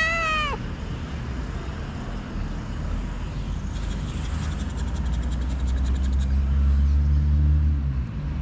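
A ginger cat's meow ending about half a second in. Then a road vehicle's engine runs close by, a steady low hum that grows louder over the second half and dips slightly in pitch near the end.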